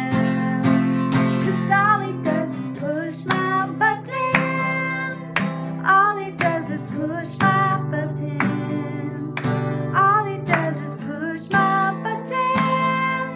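Strummed acoustic guitar accompanying a female voice singing.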